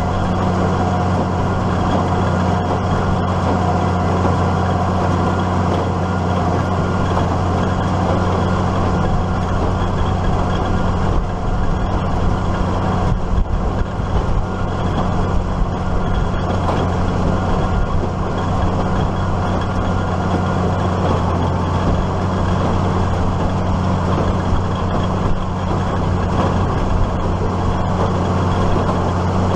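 Case IH Maxxum 5140 tractor's diesel engine running steadily under load while pulling a New Holland 570 small square baler, the baler's drive and mechanism working behind it, with a constant low drone.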